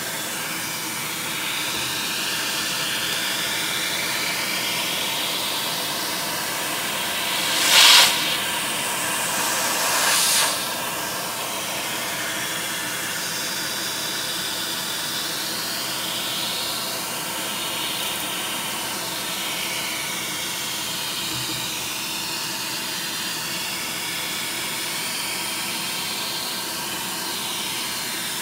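Vacuum cleaner running steadily, a constant airy hiss whose higher whine glides up and down as the nozzle moves. Twice, about eight and ten seconds in, it briefly rushes louder.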